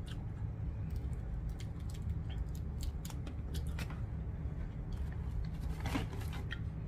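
Shell of a grilled jumbo shrimp crackling and snapping as it is peeled by hand, in scattered small clicks with a denser run about six seconds in. A steady low hum runs underneath.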